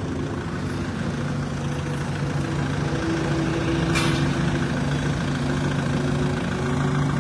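Kubota L5018VN tractor's four-cylinder diesel engine idling steadily.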